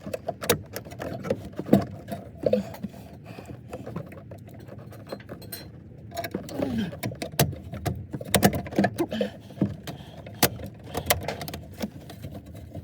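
Scattered clicks, clinks and knocks of hands and tools working a replacement heater into place under a car's dashboard, with a few brief muttered sounds in between.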